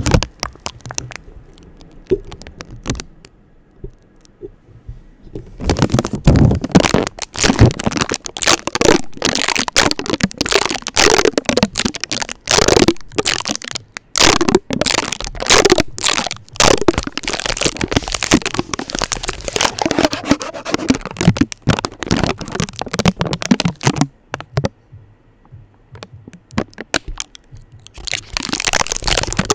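Adhesive tape being stuck onto and peeled off a microphone fast and aggressively: dense, rapid crackling and ripping close to the mic. It goes quiet for a few seconds near the start and again about three quarters of the way through.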